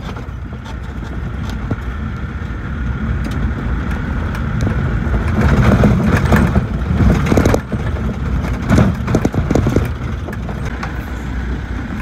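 A vehicle driving over a rough dirt track, its engine running low and steady. Between about five and nine seconds in it jolts and knocks over bumps.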